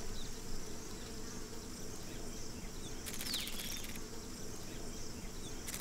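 Faint buzzing of insects: a steady fly-like hum together with a thin, high, continuous insect chirr, and a short falling whistle about three seconds in.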